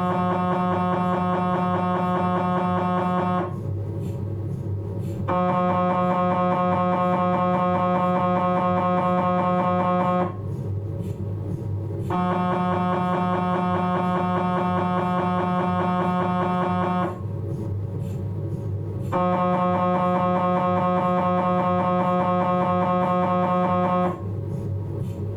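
Philips 1.5 T MRI scanner running a respiratory-triggered T2 axial MultiVane XD abdominal sequence: a loud, steady, buzzing gradient drone in bursts of about five seconds with roughly two-second pauses, four times over. A lower hum carries on through the pauses, which fall where the scanner waits for the breathing trigger.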